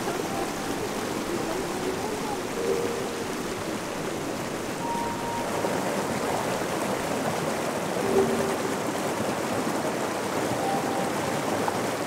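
Shallow rocky river rushing and splashing steadily over and between boulders.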